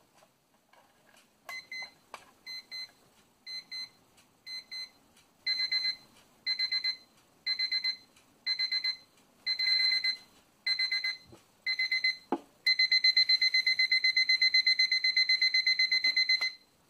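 Battery alarm clock's electronic alarm beeping on one high tone: short faint groups of beeps about once a second that grow louder and longer, then a fast unbroken run of beeps for about four seconds that cuts off suddenly near the end as the snooze button is pressed.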